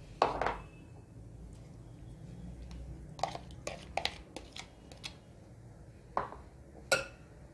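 A plastic spatula and plastic bowls knocking and scraping against a glass mixing bowl as yogurt and cream are scooped onto raw chicken. There are scattered light clicks and knocks, most of them about three to five seconds in.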